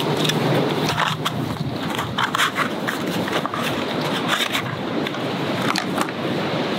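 A small cardboard box of fire-starter matches is slid open and handled, giving scattered light clicks and scrapes over steady outdoor noise.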